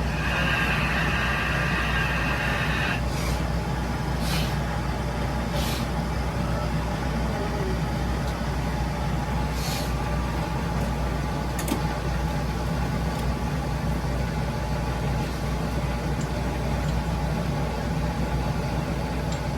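Monarch metal lathe running steadily, with a rasping cutting noise for the first three seconds or so that then stops, followed by several short hisses.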